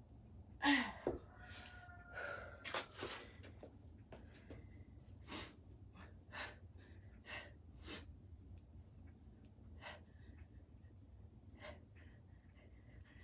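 A person's short, forceful breaths, a dozen or so puffs while working through kettlebell rows, the loudest about a second in. A steady low hum sits underneath.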